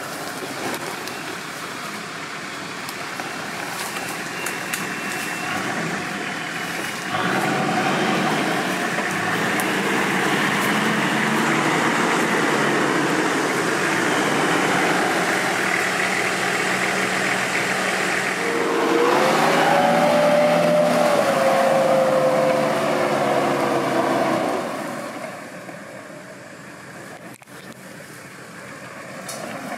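Off-road 4x4 vehicle's engine running, getting louder about seven seconds in. Later a whine rises and then sags slowly over several seconds, and the engine noise drops away near the end.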